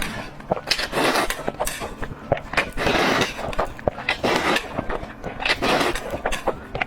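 Close-miked eating sounds: mouthfuls of food being chewed and crunched, with many sharp clicks and smacks in between.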